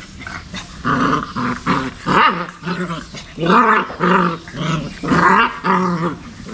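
Puppies growling, a quick string of short pitched growls that rise and fall in pitch.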